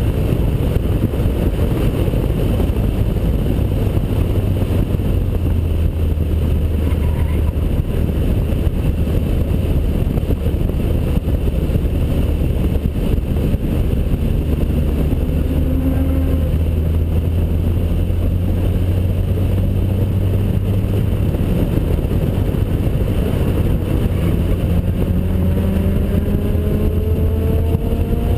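Heavy wind rush and buffeting on an outside-mounted camera at track speed, over the 2003 Honda Accord Type S's 2.4-litre four-cylinder engine running through its custom duplex exhaust. The engine note climbs in pitch in the last few seconds as the car accelerates.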